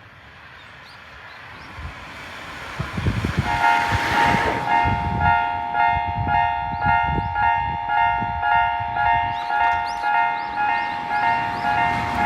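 A train passing with its wheels thudding over the rails, the noise building to a peak about four seconds in. About three and a half seconds in, a railway level crossing's electronic warning bell starts and rings in a steady two-tone pulse, about one and a half strokes a second.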